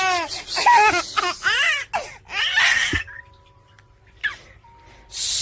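A baby laughing in a quick run of high squeals that rise and fall in pitch, ending in a breathy burst about two and a half seconds in. The laughter then stops. A loud steady hiss starts near the end.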